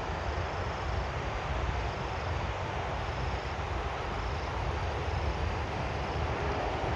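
Distant, steady rumble of a Boeing 777-300ER's GE90 jet engines on approach, growing slightly louder near the end, mixed with wind on the microphone.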